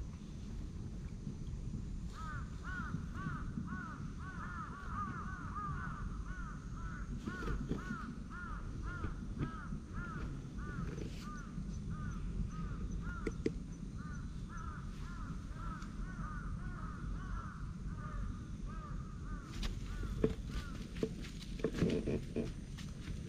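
An animal calling in a long run of short, rapid, repeated calls, about three a second, starting about two seconds in and stopping a few seconds before the end. A few sharp clicks and knocks follow near the end.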